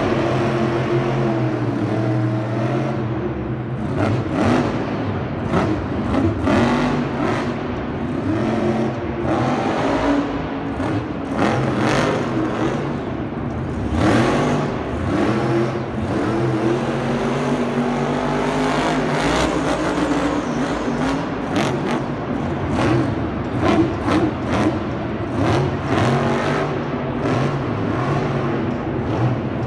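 Motor-vehicle engines revving, their pitch rising and falling again and again, with frequent sharp cracks and knocks.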